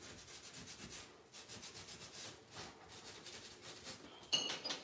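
Scouring pad on a handled tile sponge rubbed back and forth over freshly set broken-tile mosaic, scrubbing excess thinset off the tile face in quick repeated strokes. A brief high-pitched squeak comes near the end.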